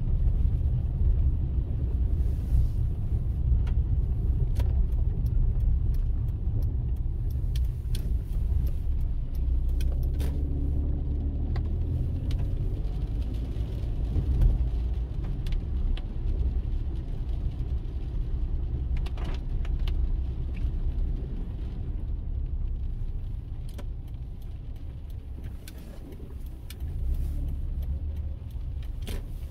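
Steady low road rumble of a car driving, heard from inside the car, with scattered sharp ticks. The rumble eases briefly near the end, then picks up again.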